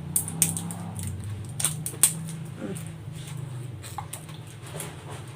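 Scattered sharp clicks and light taps of handling small objects, several in the first two seconds and a few more later, over a low steady hum.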